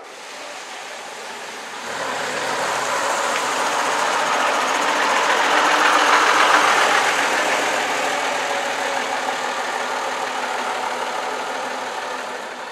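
Vintage open-top double-decker bus's diesel engine running as the bus drives slowly past and away. The sound comes in about two seconds in, grows to its loudest around the middle, then fades as the bus moves off.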